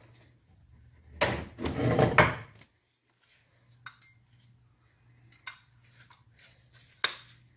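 Metal tools and parts clanking and rattling for about a second and a half, then a few scattered single clinks.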